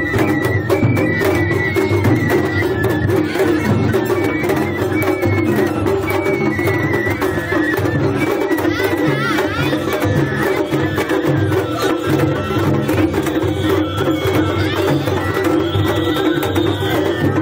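Japanese festival hayashi music played on a float: taiko drums beat a steady pattern under a high flute melody, which climbs higher near the end.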